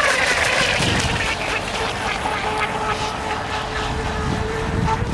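Radio-controlled model speedboat's motor running at speed on the water, a steady drone whose pitch slowly sinks as the boat runs and turns.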